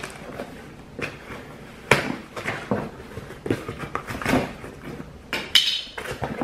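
Cardboard shipping box being handled and opened: scattered knocks, scrapes and rustles of the cardboard and its packing, with a short sharp scrape about five and a half seconds in.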